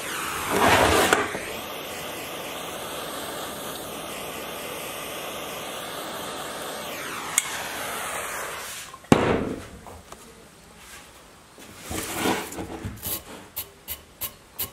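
Hand propane torch hissing steadily as it heats the trimmer's clogged exhaust spark arrestor screen red hot to burn off carbon, with a louder rush about a second in. About nine seconds in the torch cuts off with a click and its hiss dies away. Near the end a brush scrubs the burnt screen in short, uneven strokes.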